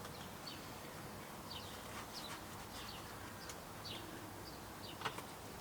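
Faint bird chirping, short high falling chirps repeated every half second or so over a low steady hum, with a couple of sharp clicks near the end.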